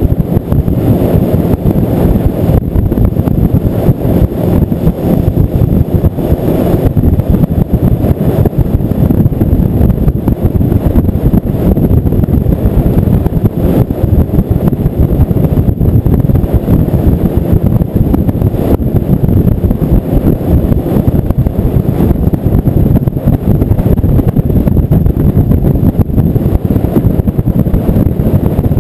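Outboard-powered boat running steadily at speed, with the motor, the hull on the water and wind buffeting the microphone blending into one loud, even rumble.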